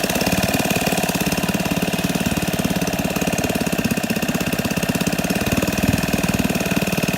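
1964 Wards Sea King 3 hp two-stroke outboard motor idling steadily at low speed after a JB Weld repair, with a rapid, even run of firing pulses.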